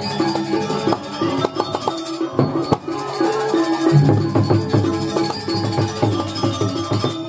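Balinese gamelan playing the accompaniment for a Jauk mask dance: bronze metallophones ringing steady interlocking notes over drum strokes. About two seconds in the low notes drop out for about two seconds while sharp drum strokes carry on, then the full ensemble comes back in.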